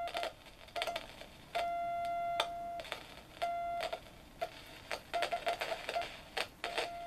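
A steady beep from a tone-generator oscillator, played through a homemade guitar-effects circuit into a small speaker. It cuts in and out several times amid many clicks and pops as the board's toggle switches are flipped.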